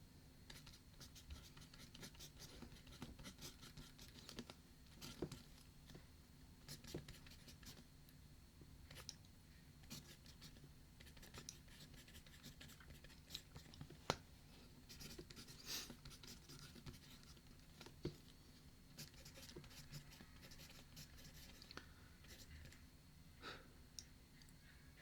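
Faint writing on paper: scattered short scratches and small taps of a pen or pencil, with one sharper tap about midway.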